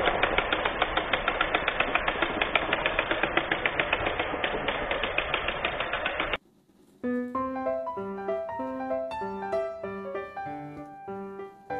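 Motorised toy train engines running, a motor whir with rapid, regular clicking. It cuts off suddenly about six seconds in, and after a short pause piano music plays.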